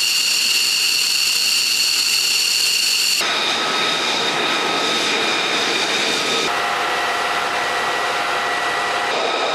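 Fighter jet engines running on the ground: a steady, high whine from an F-15C Eagle's turbofans, then the engine whine of an F-35A Lightning II taxiing close by. The whine shifts abruptly three times, each time to a different set of steady tones.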